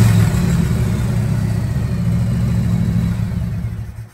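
Harley-Davidson V-twin engine held at high revs during a burnout, spinning the rear tyre. The steady engine note fades and then drops away sharply near the end.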